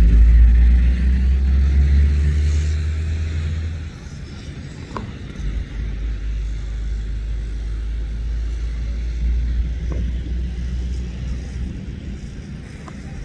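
A low, steady rumble, loud for about the first four seconds and then weaker, with a few faint clicks.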